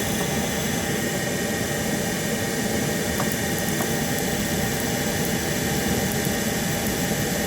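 Tankless water heater's combustion blower fan running with a steady whir during an ignition attempt. The igniter sparks but the burner does not light, the failure behind its 111 fault code.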